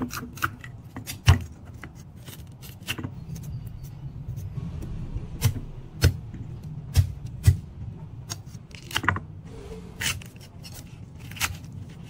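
Kitchen knife chopping onion and ginger on a thick wooden chopping block: irregular knocks of the blade on the wood, with a handful of heavier thuds.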